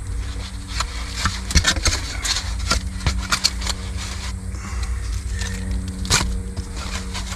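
Scraping and clattering of food containers and serving utensils being handled, in quick runs of clicks, over a steady low hum.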